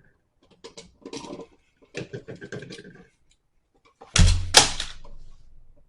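Loud rustling and knocking handling noise, starting suddenly about four seconds in and fading over about a second and a half, after a few quieter, shorter sounds.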